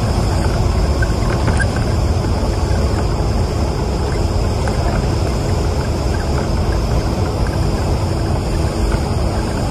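Bus engine and road noise heard from inside the cabin: a steady low rumble with no sudden changes.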